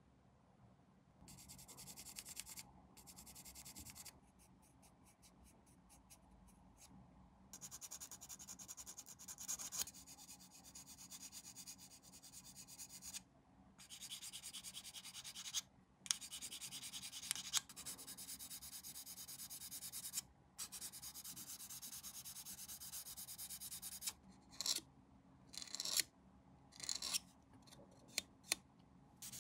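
Hand sanding of a small plastic model-kit part: fast back-and-forth abrasive strokes in several spells of a few seconds each, with a few sharp clicks in the last few seconds.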